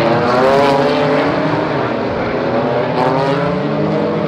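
Several GT4 race car engines running hard together, their pitch sliding down and then climbing again about two and a half seconds in.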